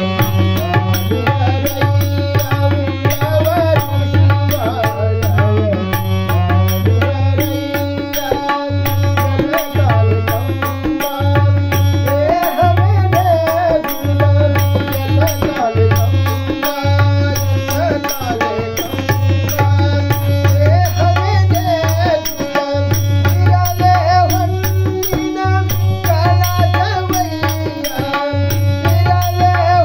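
A man singing a Kannada vachana to his own harmonium accompaniment, with a steady percussion beat underneath.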